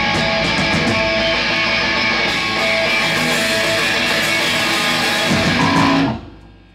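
Live band playing loud guitar-driven music; the song ends abruptly about six seconds in and the sound dies away.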